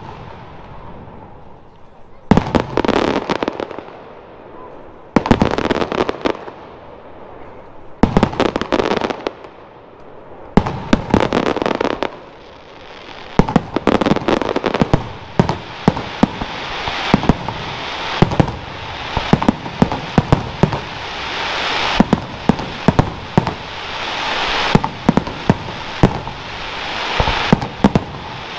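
Aerial fireworks shells bursting with sharp reports, each trailed by crackling. At first comes a loud burst about every three seconds; from about halfway they run together into a dense barrage of reports over continuous crackle that grows louder toward the end.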